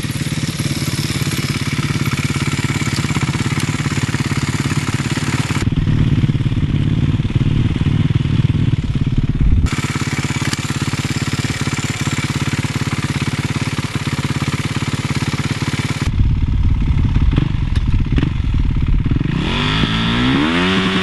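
Motorcycle engines being revved hard, in several short clips joined by abrupt cuts; near the end one engine revs up with a rising pitch.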